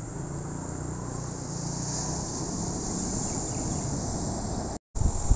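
Steady outdoor ambience: insects buzzing high and continuously over a low rumble. Near the end the sound cuts out for a moment and comes back as louder, uneven low noise.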